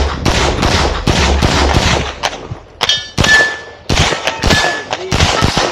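Rapid pistol shots from a 9mm CZ Shadow 2, several a second. A steel target rings with a clear tone when hit about three seconds in and again about a second and a half later.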